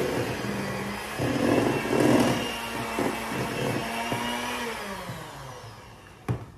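Electric hand mixer running in a stainless steel bowl, beating butter and powdered sugar into buttercream frosting, with louder spells as the beaters churn through the mix. About five seconds in it is switched off and its motor winds down, and a sharp click follows just before the end.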